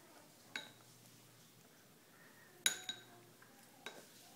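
A spoon clinking against a ceramic bowl as it scoops food, in about four short knocks: one about half a second in, two close together in the middle and one near the end.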